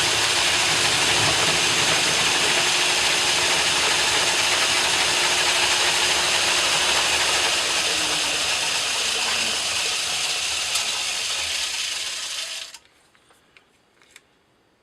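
Metal lathe running with a steady mechanical whir and gear noise while turning a steel bar. It stops abruptly about 13 seconds in, followed by a few faint clicks.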